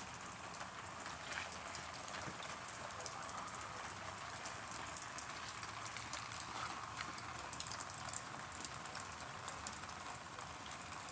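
Steady rain falling, with many small ticks of single drops striking surfaces.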